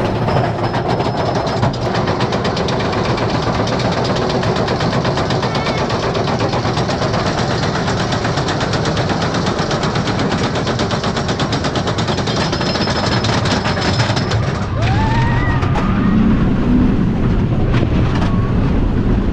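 Twisted Colossus roller coaster train running along its track: a loud, dense, rapid rattle. About 15 seconds in, the low rumble deepens and a few short rising-and-falling squeals appear.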